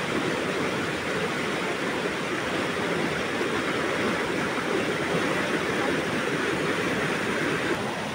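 Floodwater from a swollen river rushing steadily through a breach in a geobag embankment, a continuous churning rush of water.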